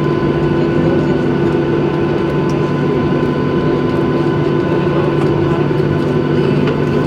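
Cabin noise of a Boeing 737-900ER on the ground, its CFM56 jet engines running at steady low power while it taxis: a constant hum with a steady whine above it.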